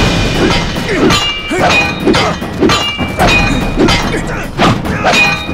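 Film-fight sound effects of a broadsword clashing with a bayonet-fixed rifle: a rapid run of metallic clangs, about two a second, each ringing briefly, mixed with swishes and the fighters' grunts.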